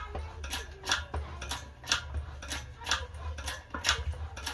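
Regular clicking, about two clicks a second, from the tool pressing a new wheel bearing into a Mk3 Golf GTI's hub carrier, over a low steady hum.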